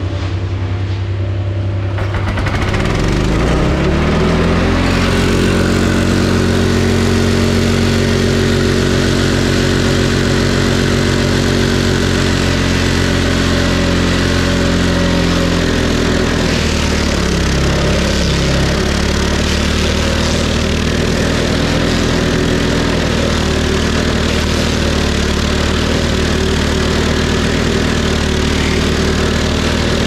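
Walk-behind stump grinder's gas engine revving up from idle over the first few seconds, then running steadily at full throttle as its cutter wheel grinds a stump. About 17 seconds in, the engine sags in pitch for a second or two as the wheel bites into the wood, then picks back up.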